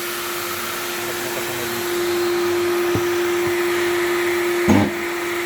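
Power sander running steadily as a car's rear bumper is dry-sanded: a constant motor hum over hiss. A light tap about three seconds in and a louder thump near the end.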